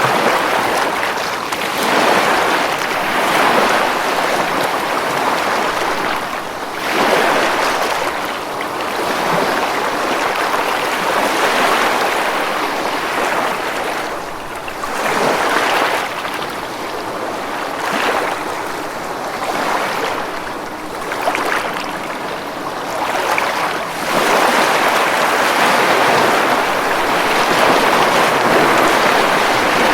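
Ocean surf breaking on a beach: a continuous wash of waves that swells and eases every few seconds, with a longer, louder surge near the end.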